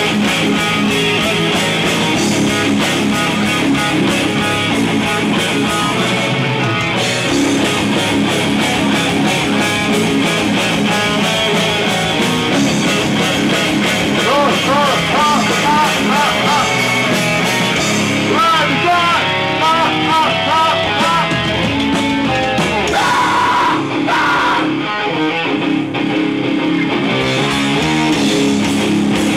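Live rock band playing loud, with electric guitar, heard from the club floor.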